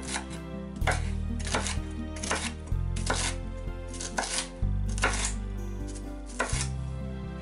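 Chef's knife chopping red bell pepper on a wooden cutting board: a series of sharp knocks, a little over one a second. Background music plays under it.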